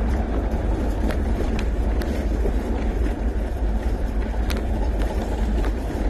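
Steady low rumble of a vehicle driving along a gravel track, its engine and tyres heard together, with a few sharp ticks scattered through.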